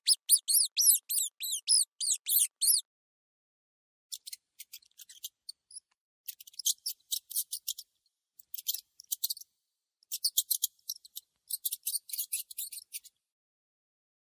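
Mouse squeaking, high-pitched. A quick run of about ten arched squeaks rising and falling in pitch lasts nearly three seconds. After a short pause come several clusters of short, rapid squeaks separated by brief silences.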